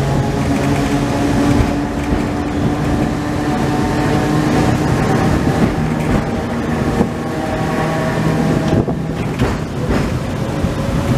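Vintage tramcar running on its rails, heard from inside the car: a steady hum from the motor and gears over wheel rumble, with a few sharp knocks about nine seconds in.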